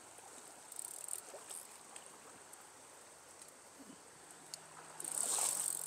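Crickets chirring faintly and steadily, a thin high drone. About five seconds in, a louder rustling of the camera being handled and adjusted.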